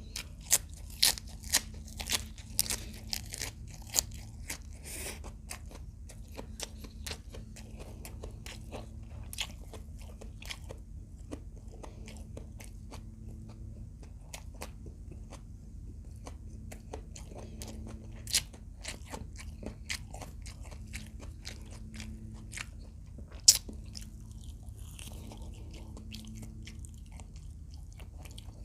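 Close-miked crunching bites and chewing of fried adobo quail: a quick run of loud crunches at first, then quieter, sparse chewing, with one sharp loud crunch near the end, over a steady low hum.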